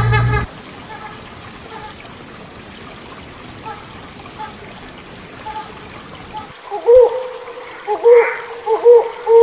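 Hornbill calls: a string of short, wavering, pitched notes, repeated a few times a second, begins loudly about two-thirds of the way in. Before it, for several seconds, there is only a steady hiss like running water, and in the first half second the end of an earlier run of calls.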